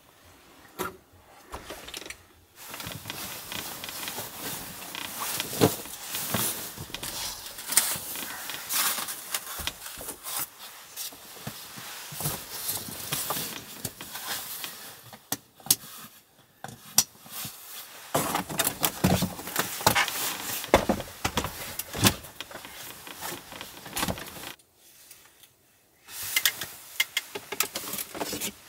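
Rustling and shuffling of fabric bedding being unrolled and handled in a small room, with scattered sharp clicks and knocks of things being moved, and a short lull near the end.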